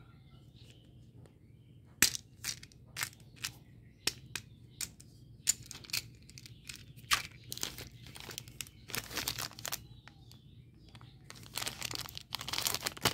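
Hard plastic toy candy containers clicking and tapping as they are handled, a sharp click every half second or so, then the crinkling of a plastic candy-bar wrapper being handled for the last couple of seconds.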